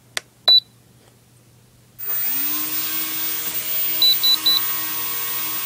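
An RC plane's electric motor starts about two seconds in and runs at a steady high whine with a rushing hiss, then begins winding down at the very end. Three short high beeps from the Dx6i transmitter come partway through the run, and a single beep and a click come before the motor starts.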